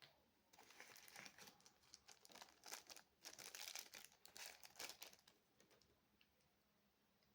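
Packaging being handled and crinkling: a dense, irregular crackle that starts about half a second in and stops about five seconds in, after a single short click at the start.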